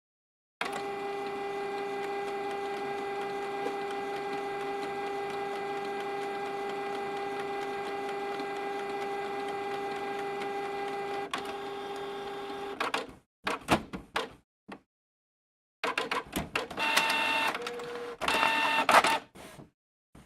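Printer mechanism running: a steady motor whir for about twelve seconds, then a series of short stop-start whirs and clicks.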